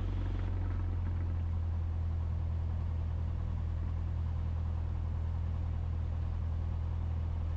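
Cessna 172SP's four-cylinder Lycoming engine running at a steady pitch, heard as an even low drone.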